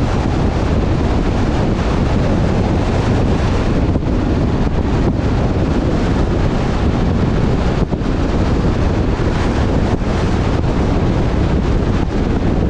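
Wind rushing steadily over the microphone of a camera on a moving truck, over a low rumble of road and engine noise.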